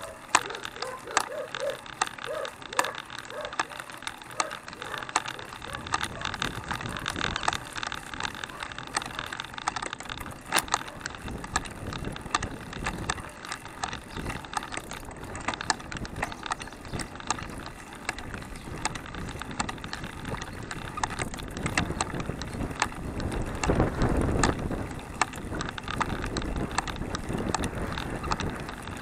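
Hand-cranked recumbent handcycle rolling along asphalt, its chain and drivetrain rattling and clicking over steady tyre noise. A low rumble builds a few seconds in and is strongest near the end.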